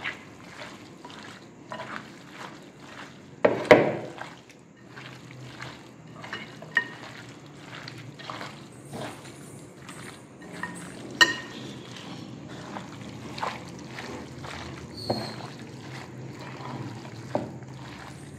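Hand squishing and rubbing raw chicken pieces in a metal bowl to work in a turmeric, pepper and salt marinade: irregular wet squelching, with two sharp knocks against the bowl, about four seconds in and again around eleven seconds.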